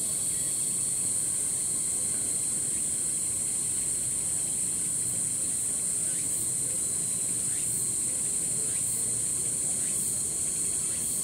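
Autumn cicadas calling in a steady, high, unbroken buzz. Faint short falling chirps of birds recur every second or two.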